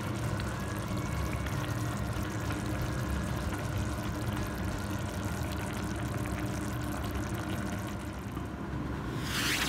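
Minced-meat tomato sauce simmering in a frying pan, small bubbles popping over a steady low hum. Near the end a brief sweeping whoosh rises and falls away.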